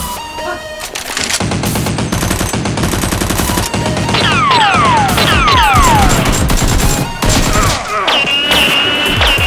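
Rapid automatic gunfire sound effects, a dense rattle of shots starting about a second and a half in, with several falling whistles around the middle.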